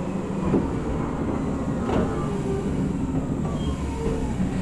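Gakunan Railway 7000-series electric railcar (a rebuilt Keio 3000-series car) pulling away from a station, heard from the driver's cab: a steady running rumble with a motor and gear whine that glides slowly in pitch. The wheels click over rail joints twice.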